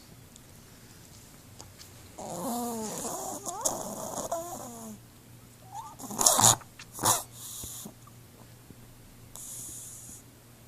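Dog snoring in its sleep. A drawn-out, wavering snore starts about two seconds in, followed by two loud snorts around six and seven seconds and a softer breath near the end.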